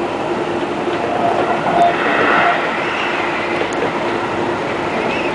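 Seibu 20000 series electric train running along the line, heard from inside the front cab: a steady rumble of wheels on rail. A faint high whine comes in about halfway through.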